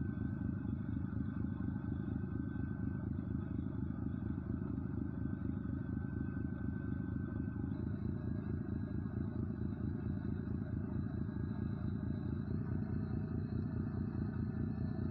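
An engine running steadily, a continuous low drone with no change in speed.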